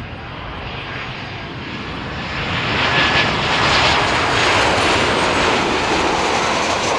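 Jet airliner on final approach passing low overhead. Its engine noise swells to a peak about three seconds in and stays loud.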